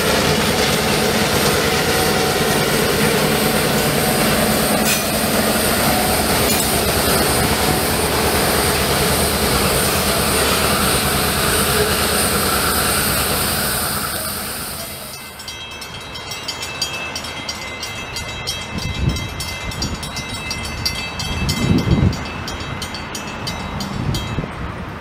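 Freight train passing a grade crossing: diesel road locomotives running as they go by, then the freight cars rolling past with steady wheel noise. The sound fades out about fifteen seconds in. After that there is quieter open-air ambience, with wind buffeting the microphone in low gusts and faint steady high tones.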